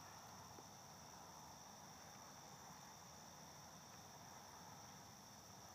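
Crickets chirring faintly and steadily, a continuous high-pitched hum.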